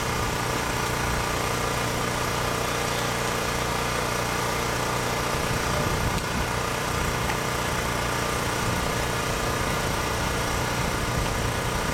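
A steady mechanical hum like an engine running at idle, unchanging throughout.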